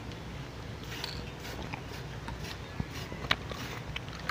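Aerosol spray-paint can hissing faintly in short bursts, with a couple of light clicks about three seconds in.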